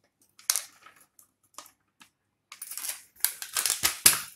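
Sharp crinkles and taps from a foil-lined packet of gulab jamun mix being shaken empty into a steel plate. A few separate ticks come first, then a dense run of crackly rustling in the second half.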